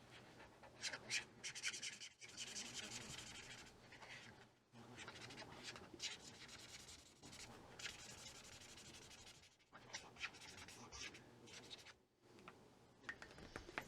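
Felt-tip marker colouring in on paper: faint scratchy back-and-forth strokes in runs of a second or two, with short pauses between them.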